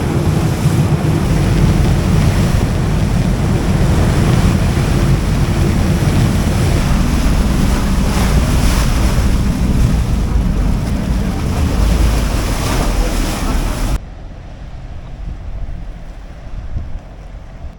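Wind buffeting an action camera's microphone: a loud, rough rumble that cuts off suddenly about 14 seconds in, leaving a much quieter background.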